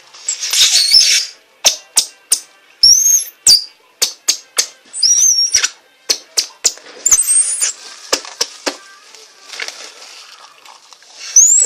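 Plastic bag held taut and worked to make high squeaky whistles: several short wavering and rising squeals in bursts, mixed with many sharp clicks and crackles of the plastic.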